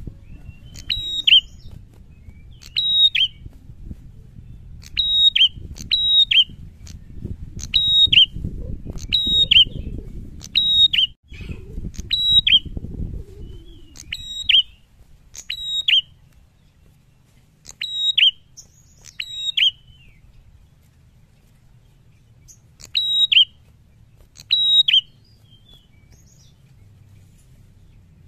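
A caged prenjak, a small warbler-like songbird, gives loud, sharp double-note calls over and over, about one every second or so, then falls silent for a few seconds before two more calls near the end.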